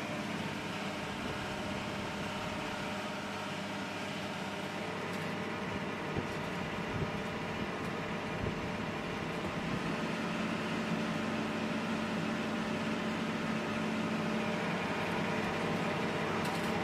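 Steady mechanical hum with a rushing hiss, like ventilation or aircraft ground equipment running, growing slightly louder, with a few faint knocks.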